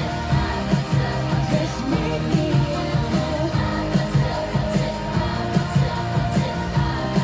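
Upbeat pop song with singing over a steady beat and pulsing bass line.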